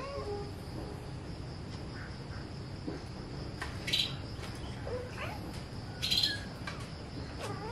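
Outdoor ambience: birds give short chirps twice, about four and six seconds in, over a steady high insect drone. A faint rising call comes between them.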